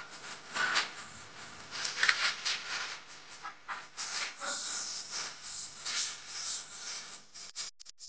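Hands working pizza dough on a silicone baking mat: soft rubbing, patting and rustling of a plastic film over the dough, in a string of short irregular strokes. The sound cuts off abruptly near the end.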